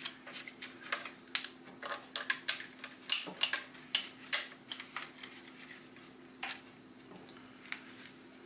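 Metal head gasket being pulled off a Honda 2.4 engine block by hand: a quick run of sharp metallic clicks and scrapes over the first four seconds or so, then a few single clicks.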